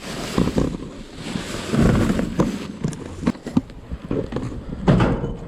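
Rustling and knocking of trash bags and discarded items being pulled about inside a dumpster, with irregular clatters and a couple of louder rumbles.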